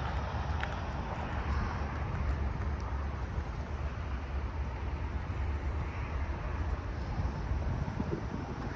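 Steady low rumble with a hiss above it: outdoor background noise, with no distinct events standing out.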